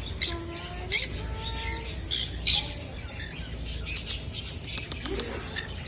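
Pet birds chirping and squawking: many short, sharp high calls overlapping, with a few lower whistled notes that slide up and then hold.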